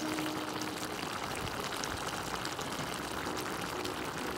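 Mutton karahi gravy simmering over a coal fire: a steady bubbling hiss with small scattered pops.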